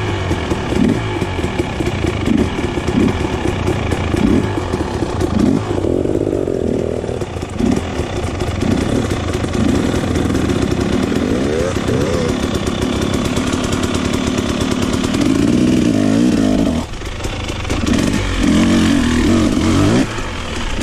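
Dirt bike engine running loud, its revs rising and falling again and again.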